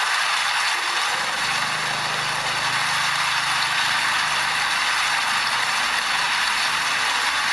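Steady rain falling, a dense even hiss. A faint low hum rises under it from about a second in and fades out near the end.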